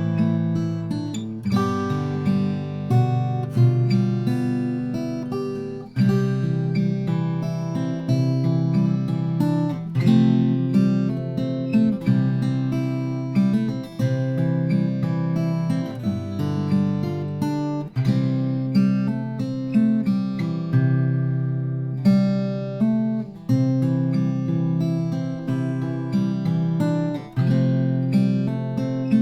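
Martin 0012-28 acoustic guitar played solo: chords strummed and picked, ringing out, with a new chord struck about every two seconds.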